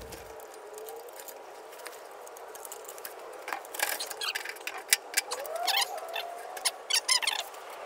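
Irregular clicks, taps and short scratchy squeaks of hands working inside a bandsaw's sheet-metal base cabinet, sparse at first and thickening from about halfway through, with one sharp click standing out.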